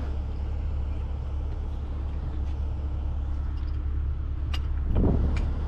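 A heavy diesel engine idles steadily as a low drone, most likely the rotator tow truck's engine running to drive its winches. About four and a half seconds in there is a single sharp metallic clink, likely from the recovery chain.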